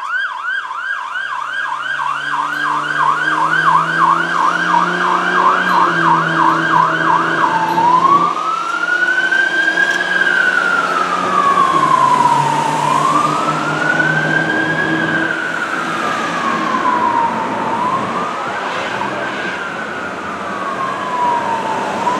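1991 E-One aerial ladder truck's siren on a fast yelp, about three sweeps a second, switching about eight seconds in to a slow wail that rises and falls every four to five seconds. The truck's engine runs under it as the truck pulls away.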